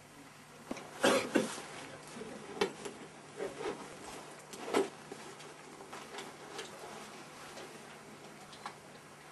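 Irregular knocks and clicks, the loudest pair about a second in, then a handful of lighter ones spread through the rest.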